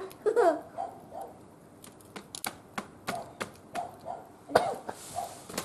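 Firewood burning in a barbecue grill, crackling with sharp, irregular snaps. A child's voice is heard briefly at the start.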